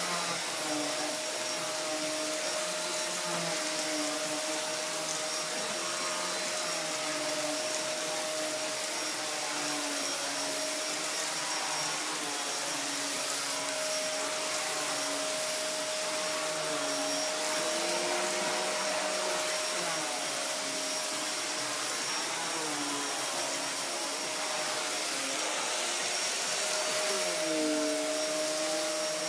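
Wertheim 4412 canister vacuum cleaner running on carpet with a motorised power head fitted, its beater-bar brush roll turning. A steady motor and airflow whine, its pitch wavering and one tone dropping in and out as the head is pushed back and forth.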